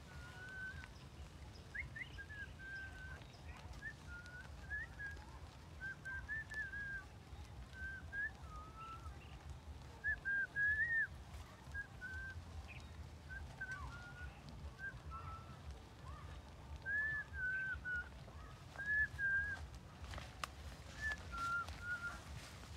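A long series of short, high whistled notes, about one a second, each bending slightly in pitch, over a steady low rumble.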